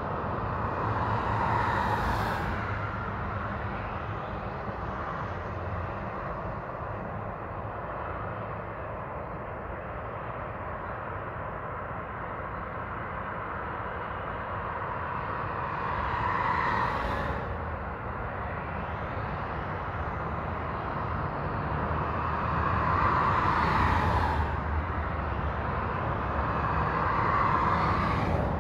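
Interstate highway traffic: a steady rush of tyre and engine noise. Four vehicles pass closer, near the start, about two-thirds through, and twice near the end, each one swelling and fading over a couple of seconds.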